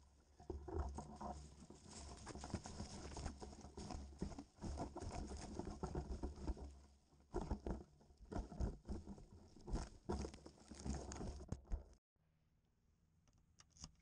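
Shrub leaves and twigs rustling and scraping against a GoPro camera as it is handled and pulled out of the bush, with a low rumble from the handling. The sound cuts off suddenly near the end, leaving a few faint clicks of a key in a door lock.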